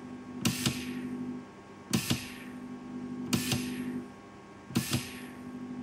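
Small DC motor of a Cheyenne Spirit rotary tattoo pen, fed straight from test leads, started four times in a row. Each time there is a pair of clicks, then a steady hum for about a second that stops. These are trial starts after its carbon brushes were re-tensioned to restore contact with the commutator.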